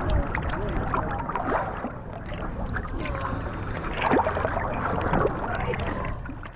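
Sea water sloshing and gurgling around a half-submerged camera at the water line, with small waves lapping against a wooden outrigger boat's hull.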